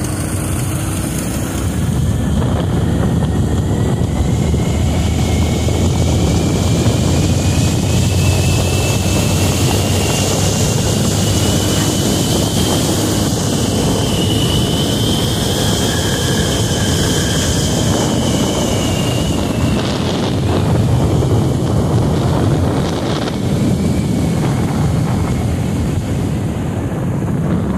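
Motorcycle on the move at road speed: the engine runs under a heavy rush of wind on the microphone. A whine climbs slowly in pitch for about fifteen seconds, then falls away.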